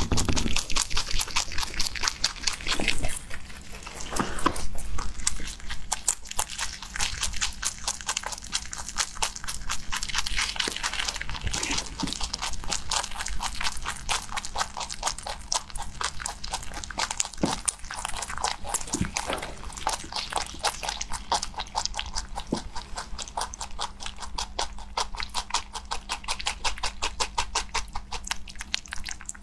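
A rabbit chewing fresh leafy greens close to the microphone: fast, even crunching, many bites a second, with no break.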